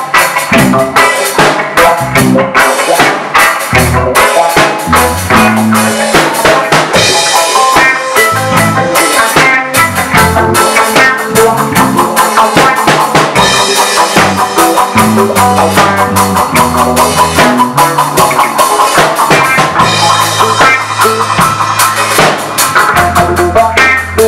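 Live rock band playing: two electric guitars over a drum kit, with steady drum hits and a moving low line underneath.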